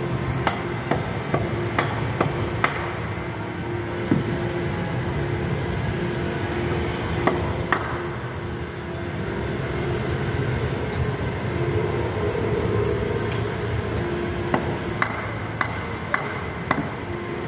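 A length of wood pounded down by hand onto the bumper-car floor frame, giving sharp, irregular knocks in short clusters, over a steady background drone of machinery.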